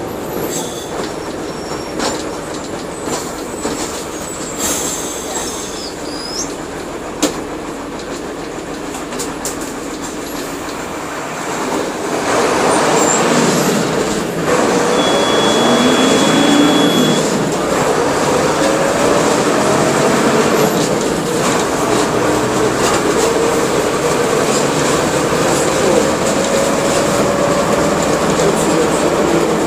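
Mercedes-Benz OF-1721 bus running on its OM-366LA six-cylinder turbodiesel, with steady mechanical and road noise. It gets louder about twelve seconds in as the bus pulls harder, and the engine note then climbs slowly through the rest.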